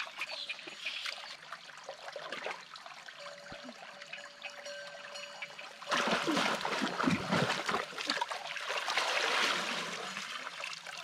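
Shallow muddy stream water splashing and trickling as a woven bamboo fish basket is worked through it by hand. About six seconds in it turns suddenly louder, with rough splashing and then water pouring out through the lifted basket.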